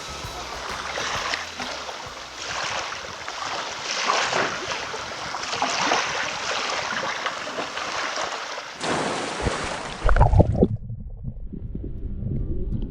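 Seawater washing and splashing in surges every second or two, with wind noise on the microphone. About nine seconds in this cuts off, a few heavy low thumps follow, and music comes in near the end.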